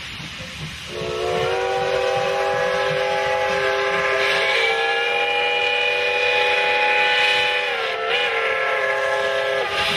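Steam locomotive whistle blowing one long chord of several tones, starting about a second in and held for nearly nine seconds, with a brief falter in pitch near the end: a departure whistle as the train starts away. A hiss of escaping steam runs under it.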